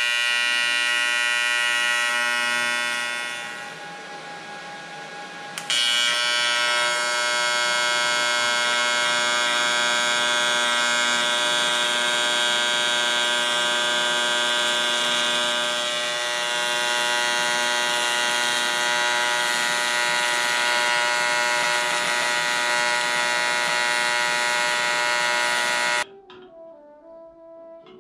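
AC TIG welding arc on aluminium, a loud steady buzz. It eases off and drops quieter about three seconds in, strikes back up suddenly near six seconds, and cuts off abruptly about two seconds before the end.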